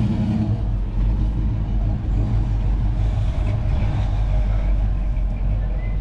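A car engine running steadily at idle, a low rumble under general outdoor noise.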